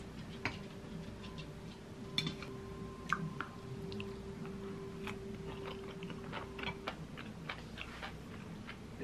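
A person eating at the table: quiet chewing, with scattered light clicks of chopsticks and a wooden spoon against a glass bowl.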